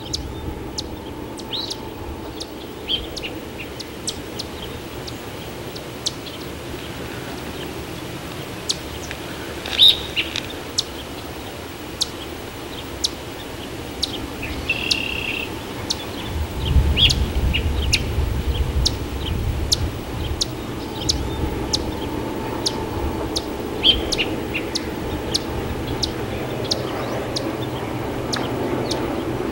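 Diesel freight locomotives and their ore train running in the distance: a steady low rumble that swells for a few seconds about halfway through, with sharp clicks scattered throughout. Birds chirp briefly now and then.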